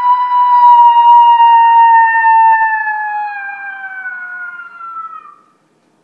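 Primos Turbo Dogg electronic predator call playing a recorded coyote interrogation howl through its speaker: one long held howl that slowly falls in pitch and fades out about five seconds in.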